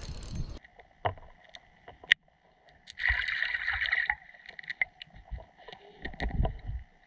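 Sound from a camera under the lake water: muffled gurgling with scattered clicks and knocks, a short burst of hiss about three seconds in, and low thumps near the end. In the first half-second, hiss from above the water cuts off abruptly as the sound switches to the submerged camera.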